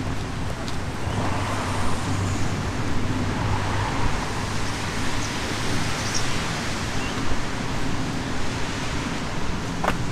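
Road traffic going by in a steady wash of noise, with a vehicle's low engine hum in the first half. A single short click comes near the end.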